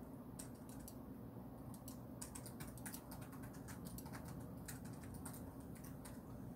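Keys of an RGB gaming computer keyboard clicking as they are pressed, in a faint, irregular run of quick clicks that thins out near the end.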